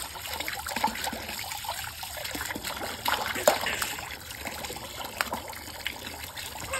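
Thin stream of water pouring into a plastic tub of water, trickling and splashing steadily, with a few sharper splashes about a second in and again midway.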